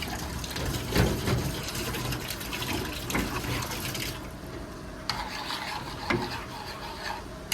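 Water running and splashing, with a few dull knocks; the high hiss drops away abruptly about four seconds in.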